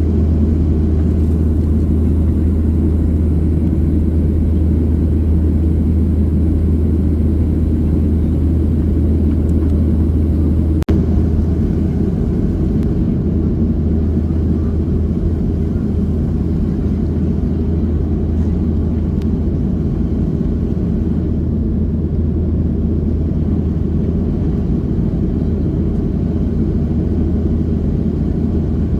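Steady jet airliner cabin noise in flight: a constant low rumble of the engines and the airflow past the fuselage, with one brief click about eleven seconds in.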